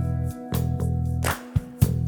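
Background music with a steady beat: bass and guitar chords with regular percussion hits.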